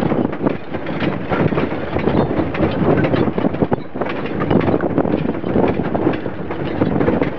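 A horse-drawn racing chuckwagon on the move: a loud, steady, dense clatter and rumble of wheels and hoofbeats.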